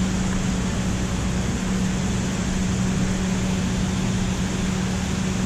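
Steady rush of water spilling over a low-head dam into the pool below, with a steady low hum underneath.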